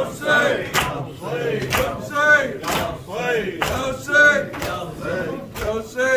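A crowd of men chanting a noha, an Urdu lament, together in a rising and falling melody. Sharp slaps of matam (rhythmic chest-beating) keep time about once a second.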